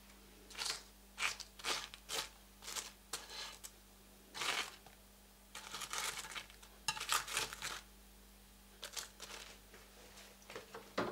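Metal tongs moving crisp, breadcrumb-coated fried zucchini slices on a glazed plate: a string of short crunching, scraping rustles of the crust against the tongs and the plate.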